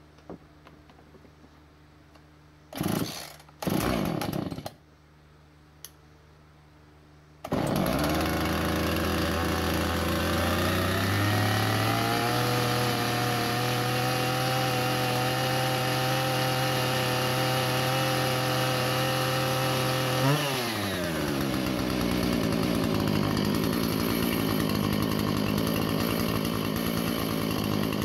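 Husqvarna 445 two-stroke chainsaw: two pulls on the starter cord, then the engine starts about seven seconds in and runs at a steady fast speed. About twenty seconds in it gives a brief blip and drops to a slower, steady idle, its carburettor's high and low jets set to 1.5 turns out and the saw running well.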